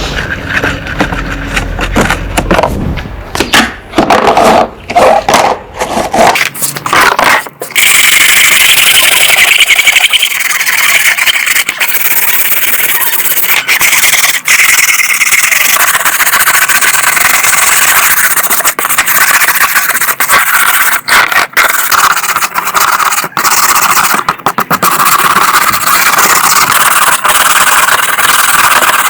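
Irregular scraping and knocking, then from about eight seconds in a small motor, power-tool-like, running loudly and steadily with a hissy, high-pitched sound.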